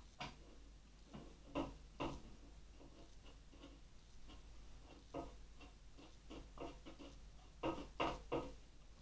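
Irregular small clicks and ticks of a screwdriver turning out the wrongly fitted fine-threaded screws that hold a motherboard, with a few sharper taps, a cluster of them near the end.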